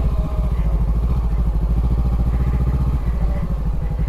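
Honda CB500X's parallel-twin engine running at low revs with a steady, even pulse as the bike creeps along at very slow speed in a slow-riding drill.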